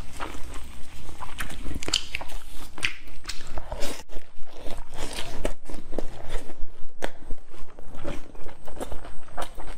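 Close-up eating of a lettuce wrap of braised pork belly: chewing and biting, with many sharp, irregular wet mouth clicks and crisp lettuce crunches.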